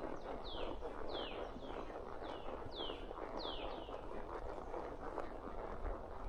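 Horse walking, its hoof steps and tack making a steady rough rustle and thudding. A bird repeats a high falling note about twice a second.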